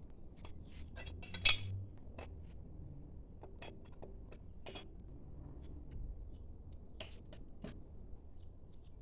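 Metal tools and engine parts clinking and clicking as they are handled and set down, in a scattered run of light knocks with one loud clink about a second and a half in.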